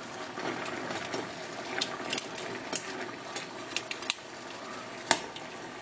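Water boiling hard in a frying pan: a steady bubbling hiss with scattered sharp pops and clicks, the loudest about five seconds in.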